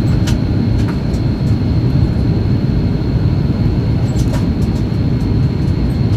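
Airliner cabin noise in flight: a steady low roar of engines and rushing air, with a thin, steady high whine over it and a few faint ticks.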